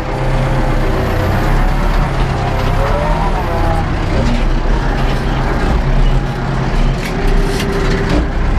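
Ursus 914 tractor's diesel engine running steadily under heavy load, heard from inside the cab while it pulls a disc harrow through heavy clay, with a few knocks and rattles near the end.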